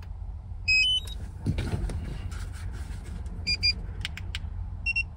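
Electronic beeps from drone gear being handled: a quick rising run of tones about a second in, a few short beeps later on and one more near the end. Light plastic clicks and a steady low rumble run underneath.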